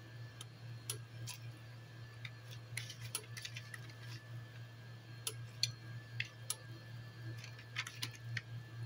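Pot of sinigang simmering on an electric cooker: scattered, irregular small ticks and pops over a steady low hum.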